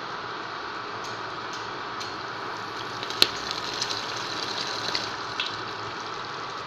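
Chicken roast gravy, thick with oil, simmering in a pan over a gas flame. It gives a steady sizzling hiss, with small pops of bubbles from about three seconds in and one sharp click just after.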